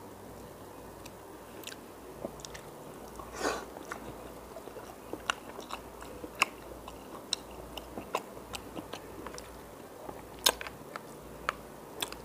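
A person chewing a mouthful of creamy rotini pasta in white sauce, with irregular sharp wet clicks and smacks from the mouth and one longer, louder one about three and a half seconds in.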